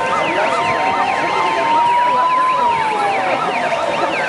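Several sirens sounding at once: fast repeating yelps overlap slower wails that rise and fall in pitch.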